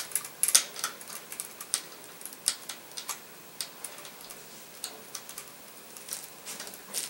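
Light, irregular clicks and taps of small plastic and metal parts being handled and fitted on a transmission valve body, as the shift solenoids and their retaining bracket are set in place on the conductor plate.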